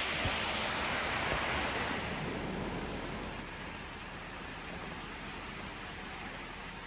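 Floodwater from an overflowing creek rushing steadily; the rush becomes quieter about two and a half seconds in.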